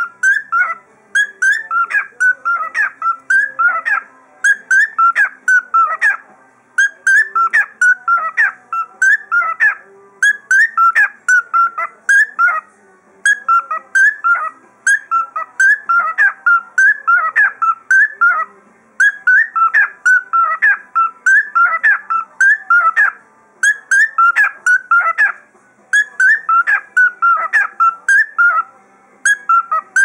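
Whiteface cockatiel whistling a tune, repeating short chirpy phrases of about two seconds with brief pauses between them.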